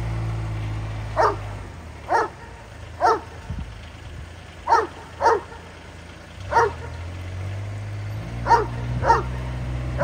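A dog barking, about eight sharp barks at uneven intervals, some in quick pairs. Underneath, a utility vehicle's engine runs with a low steady hum that fades out about two seconds in and comes back a few seconds later.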